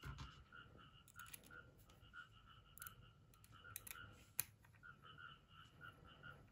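Faint scattered clicks of small parts being handled as a red dot sight is screwed onto an airsoft Glock pistol, with one sharper click about four seconds in. A faint steady rhythmic chirping runs in the background.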